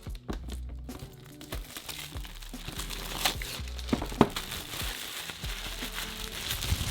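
Packaging crinkling as it is handled and unwrapped, with two sharp clicks about halfway through, over background music.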